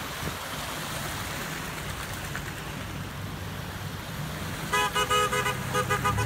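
Cars wading slowly through a flooded street, with a steady wash of water and engine hum. Near the end a car horn honks in a rapid string of short toots, louder than everything else.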